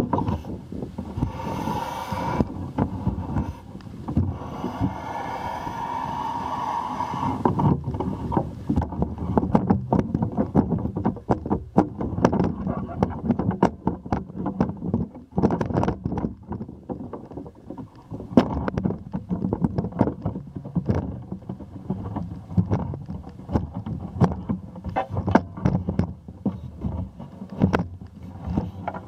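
Wind rushing over the microphone of a camera held up on a pole, followed, from about eight seconds in, by handling noise from the pole: frequent sharp knocks and clicks over a low rumble as it is swung about.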